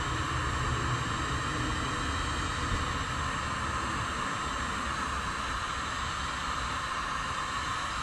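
Inexpensive two-temperature Harbor Freight heat gun running steadily, its fan blowing with a constant hiss, with a low rumble underneath.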